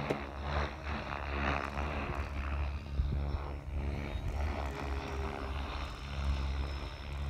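Wind buffeting the microphone in an uneven low rumble, with a faint, thin, steady high whine behind it.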